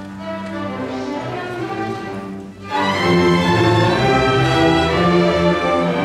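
School string orchestra playing, violins, cellos and double basses together. Just before halfway there is a brief break, after which the full ensemble comes in louder.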